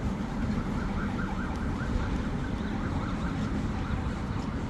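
A faint siren warbling quickly, several short notes a second, for a couple of seconds, over a steady low rumble.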